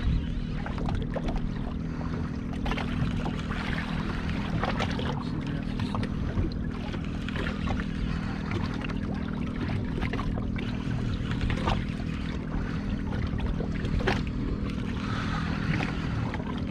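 Honda outboard motor idling steadily on a boat sitting on the water, a constant low hum under the wash of water and wind, with a few light knocks here and there.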